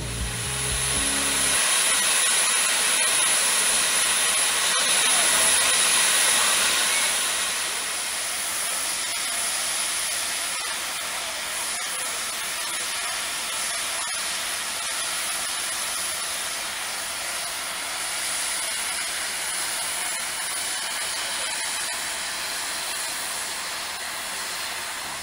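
FS 740 steam locomotive blowing off steam: a steady, loud hiss, strongest for the first several seconds and then easing slightly.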